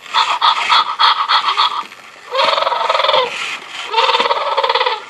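Spin Master Zoomer Dino robotic toy dinosaur playing electronic dinosaur sounds from its speaker while in touch mode: a rapid stuttering chatter lasting under two seconds, then two calls about a second long each.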